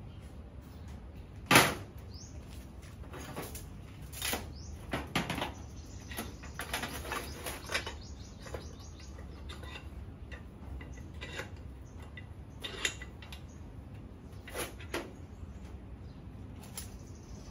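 Scattered metal clanks and knocks of a bench vise being worked and steel pieces being handled on a metal workbench. The loudest comes about one and a half seconds in.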